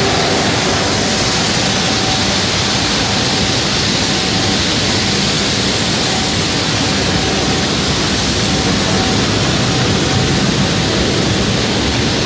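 Steady, loud rushing roar of blast furnace plant equipment, with a faint steady tone running under it for most of the time.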